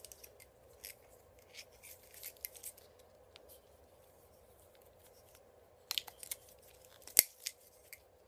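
Hands handling an HID headlight wiring harness and its rubber boot: scattered small clicks and rustles of wires, plastic connectors and rubber, with a brief flurry about six seconds in and one sharper click just after seven seconds.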